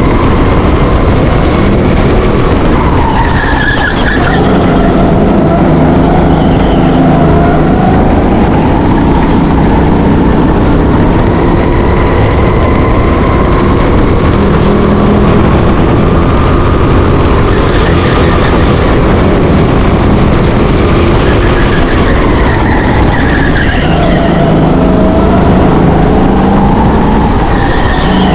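Go-kart engine running hard around a lap, its pitch rising and falling as the driver comes on and off the throttle. Tyres squeal briefly in several corners.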